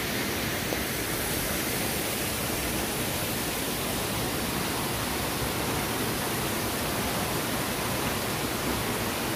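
Stream water rushing steadily over rock steps and small falls.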